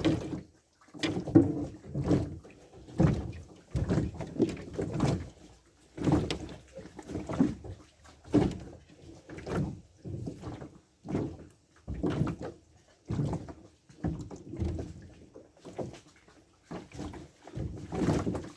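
Water slapping and knocking against the hull of a small canoe in uneven, dull bursts, roughly one a second.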